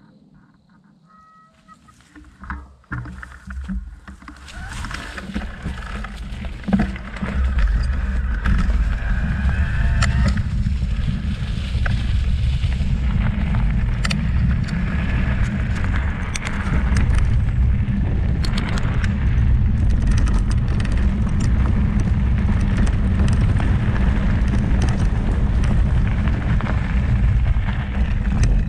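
Wind rushing over the microphone and knobby tyres rolling over gravel as an e-mountain bike descends a forest trail at speed, with scattered clicks and rattles from stones and the bike. Quiet for the first two seconds, then building to a steady loud rush within about seven seconds.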